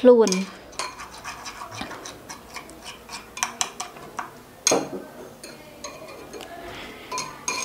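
Metal spoon stirring and scraping a thick paste in a ceramic cup, with many small irregular clicks of the spoon against the cup's side and a louder knock about halfway through.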